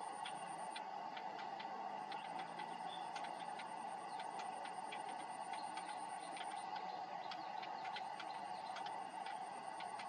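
Irregular faint clicks, several a second, over a steady hiss, with a thin high whine that drops out twice.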